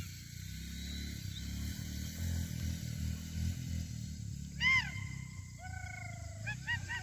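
Animal calls: one loud, clear, arching call about two-thirds of the way in, then a longer, lower call and a few short quick calls near the end, over a steady low rumble.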